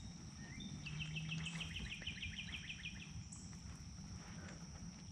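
A songbird singing a quick trill of about fifteen short, even notes that lasts about two seconds, led in by a short rising note. A steady high thin whine and a low rumble run underneath.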